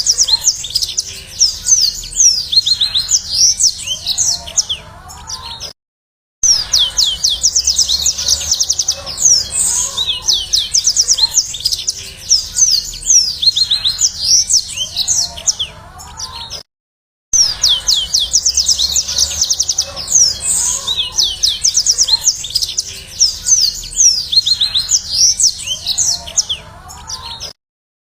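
Yellow-fronted (Mozambique) canary singing: fast, high trills and chirps. The same stretch of song repeats about every eleven seconds, each repeat cut off by a brief dead-silent gap, as in a looped song recording used to lure or train cage birds.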